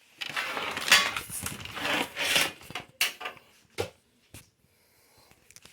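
Handling noise as objects are rummaged and shifted about: scraping and rubbing for a couple of seconds, then three sharp clicks or knocks.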